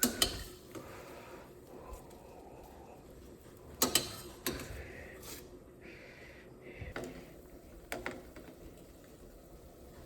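A handful of sharp clinks and knocks of cooking utensils against a pan, loudest about four seconds in, over a faint steady sizzle of red wine reducing with onions.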